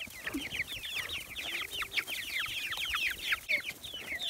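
A flock of chickens peeping and cheeping, many short, high, falling calls overlapping without a break, as the birds clamour excitedly for their feed.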